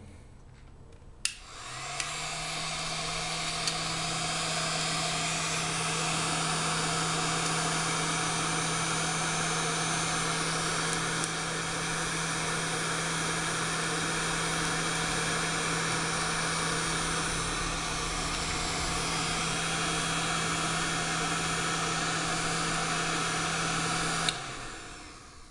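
Heat gun blowing hot air with a steady rush and a low motor hum. It is switched on about a second in and off about a second before the end. It is heating a surface-mount chip on a circuit board to melt its solder balls so the chip can be lifted off.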